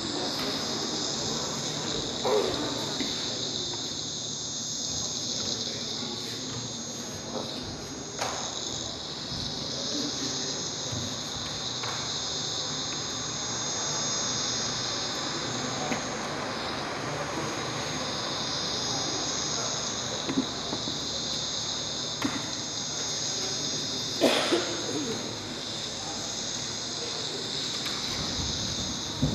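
Crickets chirping in a steady high chorus throughout, with a few thuds of bare feet on the wooden stage floor, the loudest about 24 seconds in.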